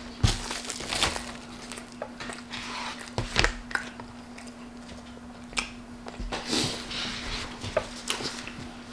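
Takeout food packaging being handled: a paper fast-food bag rustling and a plastic fries tray being taken out, heard as scattered crinkles and clicks over a faint steady hum.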